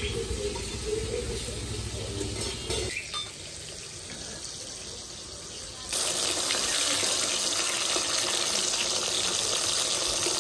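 Pieces of silver carp sizzling as they fry in hot oil in a wok, quieter at first, then a loud steady sizzle from about six seconds in.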